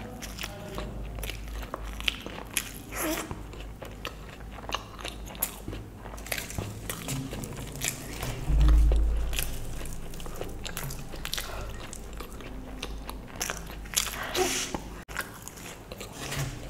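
Close-up wet chewing and lip-smacking of a person eating soft fried luchi bread and spicy potato curry with her fingers, with many short clicks and smacks. A dull low thump about halfway through is the loudest sound.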